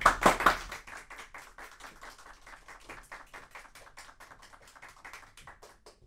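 Small audience applauding: loud clapping at first, thinning over a few seconds to scattered claps that die away just before the end.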